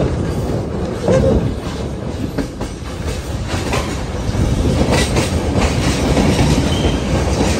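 Passenger train running at speed, heard at an open carriage window: a steady rumble of wheels on rail with scattered clacks at the rail joints, getting louder about four seconds in as the train enters a tunnel.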